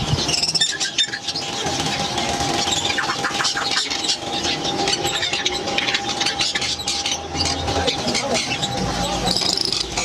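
Caged parrots, among them rose-ringed parakeets, chattering with many short squeals and squawks over a busy background, with a steady thin tone running underneath.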